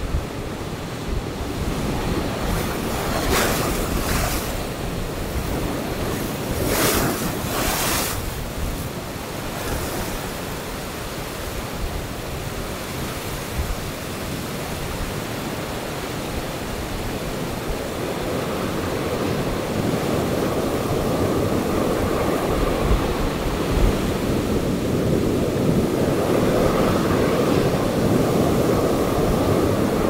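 Ocean surf breaking and washing over black lava-rock ledges, a continuous rush with a couple of sharper crashes between about three and eight seconds in, growing louder in the second half. Wind buffets the microphone.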